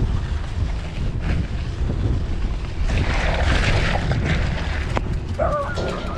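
Wind buffeting the microphone on a moving bicycle, a dense low rumble over street noise, with a hiss swelling for a second or so midway. Near the end comes a brief wavering high-pitched sound.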